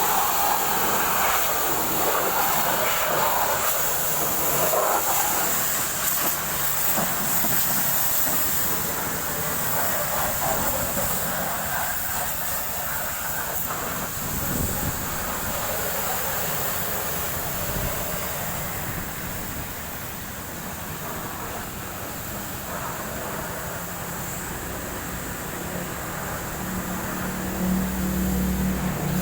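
High-pressure water spray hissing against a Scania K360ib bus's engine bay. A low steady hum comes in near the end.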